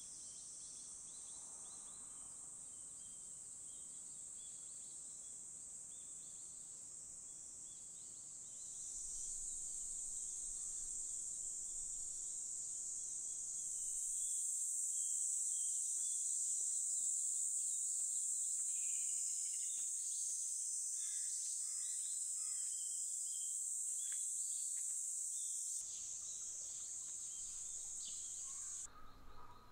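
Evening insect chorus: a steady, high-pitched shrill of insects, with scattered short chirps in the middle. It steps louder about a third of the way in and again near the middle, and drops back near the end.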